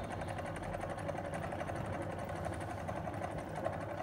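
AC servo motor and its coupled DC machine running at about 700 rpm with a steady whir while the load on it is being increased.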